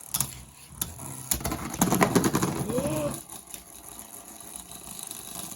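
Beyblade Burst spinning tops in a plastic stadium: a few sharp clicks, then about two seconds of whirring with a rising tone, fading after about three seconds.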